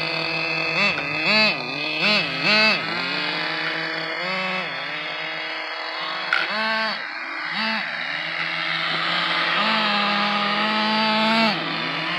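Small two-stroke nitro engines of radio-controlled cars: one revs in short blips, rising and falling, over a steady idling tone. Near the end it holds a higher rev for about two seconds before dropping back.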